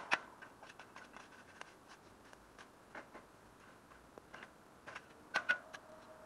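Steel spade digging and levering in soil around a climbing rose's roots: a run of scraping clicks as the blade is pushed in and worked, with a sharper hit at the start and two more near the end.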